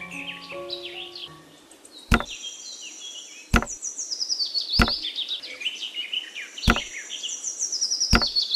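Five sharp knocks, one every one to two seconds, over many high bird chirps. A few musical notes fade out in the first second or so.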